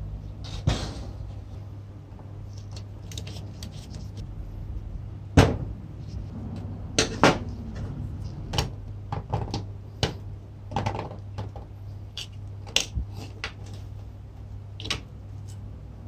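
Metal hand tools and typewriter parts clinking and knocking as a rusty typewriter frame is taken apart: scattered sharp clicks, the loudest about five seconds in and more from about seven seconds on, over a steady low hum.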